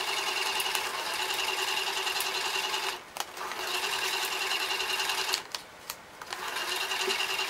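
Electronic toy money safe's small bill-feeder motor whirring as it draws banknotes in through the slot. It runs in three stretches with two short breaks, about three seconds in and again shortly after five seconds.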